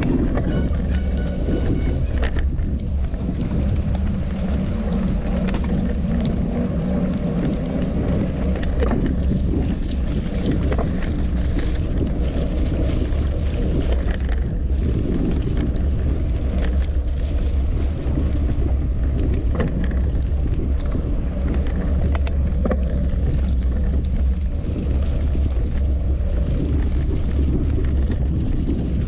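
Wind rumbling on a GoPro action camera's microphone as a mountain bike rolls at about 20 km/h over wet asphalt, with tyre hiss from the wet road and occasional small clicks and rattles from the bike.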